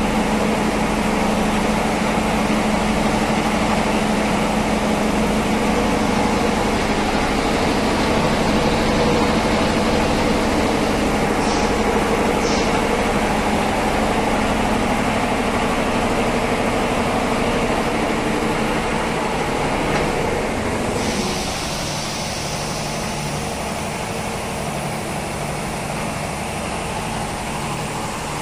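ELGi belt-driven reciprocating air compressor running, a loud steady mechanical drone with an even hum. About three-quarters of the way through it drops a little in level and the hum changes pitch.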